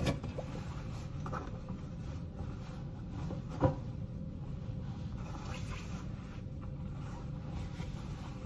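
Cotton lab coat rustling and rubbing as it is unfolded and put on, over a steady low room hum, with one sharp knock about three and a half seconds in.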